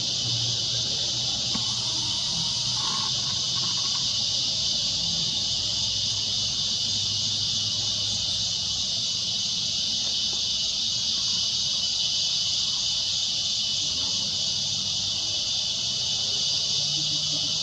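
Steady chorus of insects chirring, a dense high-pitched sound that holds at one level throughout, with a faint low hum underneath.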